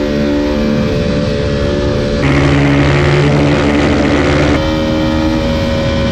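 Yamaha supermoto's single-cylinder engine running at a steady high rpm during a wheelie, with wind rushing over the microphone. For a couple of seconds in the middle the note changes and grows a little louder and hissier.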